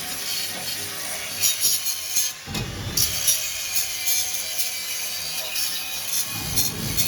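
Metalwork on a steel gate lock mount: a steady scraping noise of a tool working the metal, briefly interrupted about two and a half seconds in.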